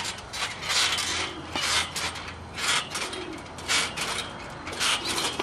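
Trampoline being bounced on: a rasping creak of the stretched mat and coil springs with each bounce, about once a second, five times.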